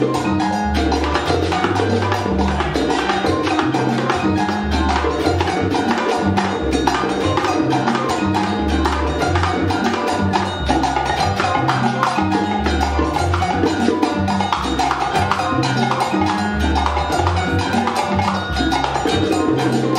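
Background music with busy, steady percussion clicks over a bass line that steps from note to note.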